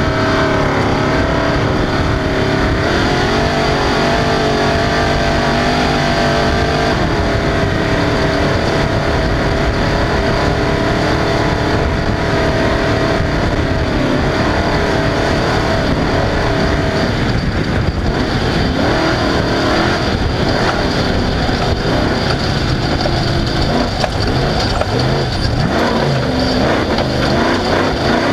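Off-road race vehicle at speed, its engine running hard with the note rising and falling as the throttle comes on and off. From about halfway the engine note is mostly buried under harsher rattling and ground noise.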